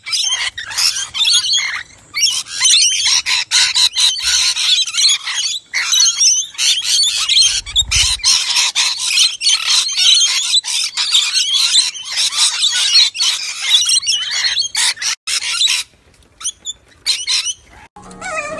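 A flock of rainbow lorikeets calling all at once, a dense, continuous high chatter of many birds, thinning to a few scattered calls near the end.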